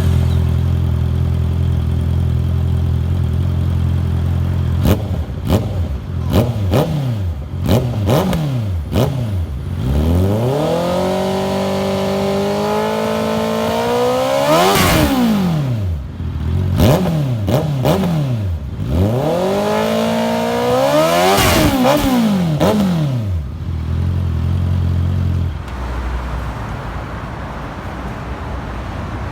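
A 2021 Honda CB650R's inline-four revs through an aftermarket full-system exhaust. It idles for the first few seconds, then comes a string of quick throttle blips with sharp pops between them and two longer revs that climb, hold high and fall back. Near the end it settles to idle.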